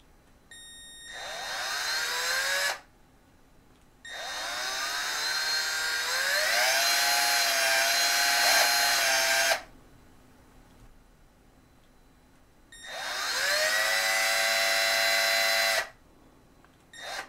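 Cordless drill driving screws through a thermostat baseplate into drywall, in three runs with a short blip at the end. Each time the motor whine climbs in pitch as it spins up, then holds steady; the middle run lasts about five seconds.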